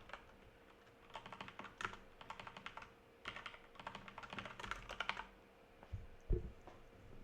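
Computer keyboard typing in several quick bursts with short pauses between them, and a single dull thump about six seconds in.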